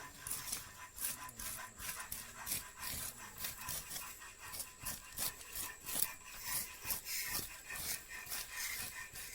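Hand file rasping on the iron blade of a small hoe in repeated back-and-forth strokes, about two to three a second: the blade being filed.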